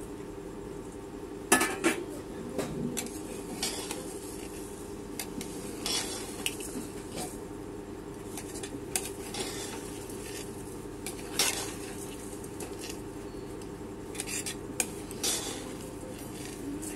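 Metal spoon scraping and knocking against the inside of an aluminium pressure cooker as rice is stirred into fried potato masala, in irregular strokes with the loudest knock about a second and a half in. The hot masala sizzles faintly under a steady low hum.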